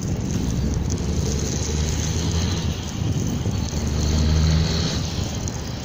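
A motor engine running with a steady low hum that shifts slightly in pitch and swells about four seconds in, with a rushing noise over it.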